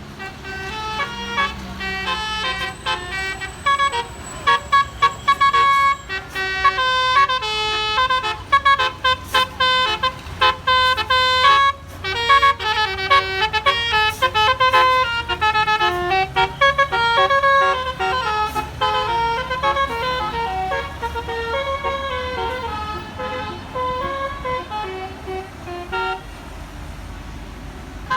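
Bus's basuri telolet musical air horn playing a tune of short notes that step up and down, starting about two seconds in and thinning out near the end, over a low engine rumble.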